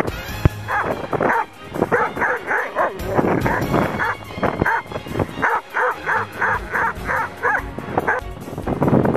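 Irish Setter barking over and over in quick short barks, about four a second, while running.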